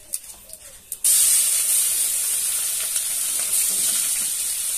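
Chopped onion hitting hot oil in a kadai and frying: a sudden loud sizzle about a second in, then holding steady.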